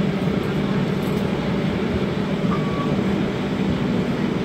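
Steady running noise inside a Toronto streetcar in motion: an even low hum and rumble at a constant level.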